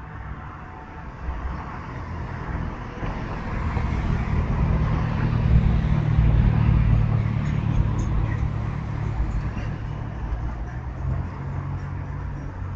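A car driving past on the street, its engine and tyre rumble swelling to a peak about six seconds in, then slowly fading away.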